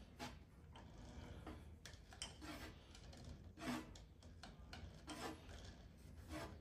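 Faint rubbing and scuffing as a hand pushes and flexes the slack V-belts and touches the pulley of a stopped lathe's belt drive, with a few light knocks.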